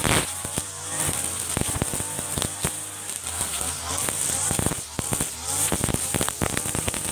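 Mitsubishi TU33 two-stroke brush cutter running at high speed with a steady high whine, its cutting head slashing through tall grass with many sharp cracks and clicks as it hits stems and debris.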